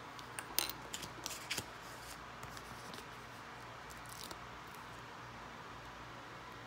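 Plastic Lego pieces clicking and tapping against a hard tabletop as a hand sets a small build down: a quick run of sharp clicks in the first second and a half, then a few softer taps.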